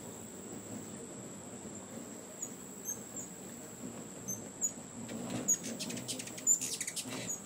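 Hummingbirds chasing each other at a feeder, giving short, high chip notes here and there that build into a rapid chattering flurry about five seconds in.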